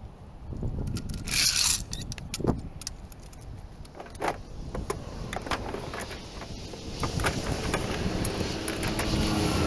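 Metal clinks, knocks and scrapes from hand tools working on the boat trailer's rusted spare-tire hanger, which has a seized nut. A loud scrape comes about a second and a half in, and a vehicle engine hum builds near the end.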